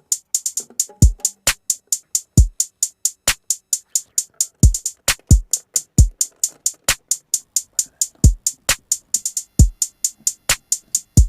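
Background music: an electronic drum beat of fast, sharp hi-hat ticks, about four or five a second, with deep kick drums falling in between.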